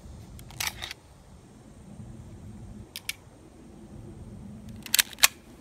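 All-plastic spring airsoft 1911 pistol being worked and cocked: a short cluster of clicks about half a second in, a quick pair of light clicks at about three seconds, and two loud sharp snaps a quarter second apart near the end.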